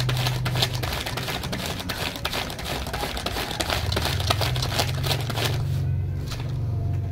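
Dry banana leaf crinkling and scratching as a galih asem wood ring is rubbed across it in strokes to polish the wood to a shine, stopping about five and a half seconds in. A steady low hum runs underneath.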